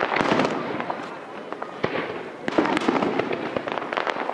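Aerial fireworks bursting: a quick string of sharp bangs mixed with crackling, coming in waves.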